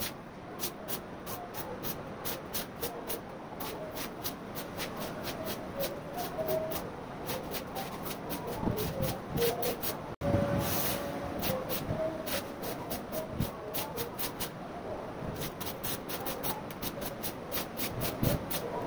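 Walis tingting, a stiff broom of coconut-leaf midribs, sweeping standing water across a wet floor: quick repeated strokes, about four a second.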